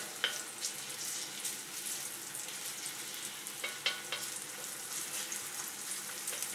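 Chopped onions sizzling steadily in hot olive oil in a wok, with a few short clicks.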